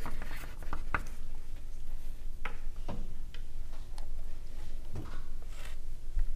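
Light ticks and taps scattered irregularly through a quiet room, as pencils tap and write on paper at the contestants' table.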